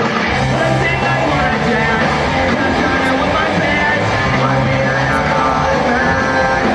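Punk rock band playing live: drum kit, electric bass and guitar, with lead vocals sung into the microphone.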